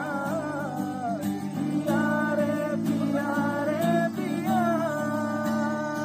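Live music: a singer with acoustic guitar accompaniment, the voice holding and sliding between long notes over steady guitar chords.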